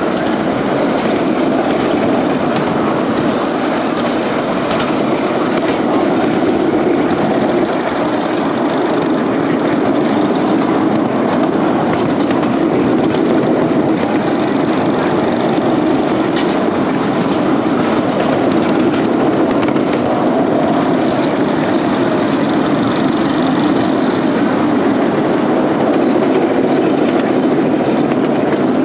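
A 10¼-inch gauge miniature railway train running steadily, heard from an open passenger carriage: a continuous rolling rumble of the wheels on the track with occasional light clicks.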